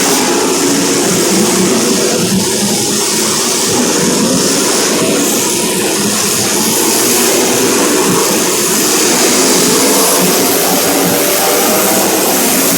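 A pack of small race-car engines running together at speed, a steady loud engine drone with overlapping pitches.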